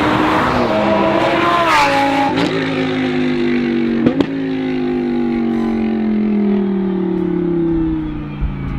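Lamborghini Huracán Super Trofeo race car's V10 passing close by on track. Its engine note drops in pitch as it goes past, there is a sharp crack about four seconds in, and then the note falls steadily as the car slows and pulls away.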